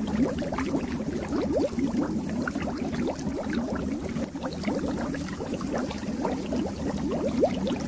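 Fish tank water bubbling steadily: a continuous stream of many small bubbles.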